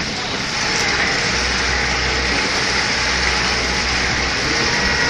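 Twin Honda 90 hp four-stroke outboard motors running steadily under way, a low drone beneath the rush and churn of the prop wash.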